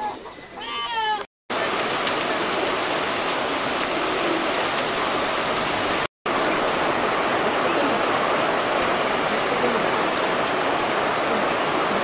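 Steady rain falling, an even hiss with no pitch to it, broken by two brief silences where the footage is cut.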